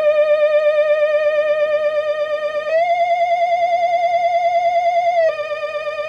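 Spooky theremin-style electronic tone wavering with a fast vibrato. It holds a low note, glides up to a slightly higher one a little under halfway through, and slides back down near the end, part of a looping Halloween sound effect.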